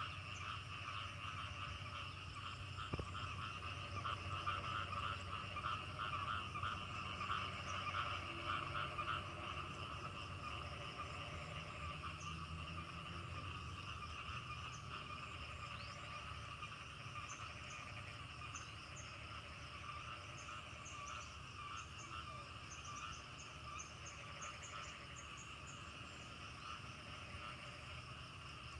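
A chorus of many frogs calling together, a dense fast pulsing that is loudest in the first ten seconds or so and then eases off. Faint high chirps join in during the second half.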